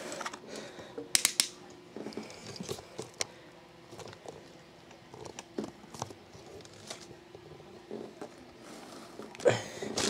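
Handling noises: scattered clicks, taps and rustles from a power cord being plugged in and a camera being moved, with a sharp cluster of clicks about a second in. The fan itself is not yet running.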